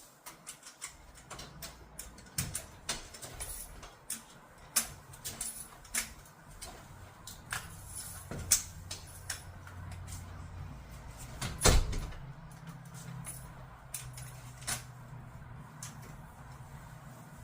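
A series of scattered knocks, clicks and clatters of things being moved and handled, with one heavy thump about 12 seconds in, over a steady low hum.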